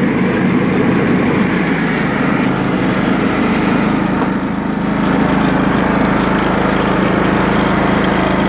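John Deere LT155 lawn tractor's single-cylinder Kohler Command 15 hp engine running steadily.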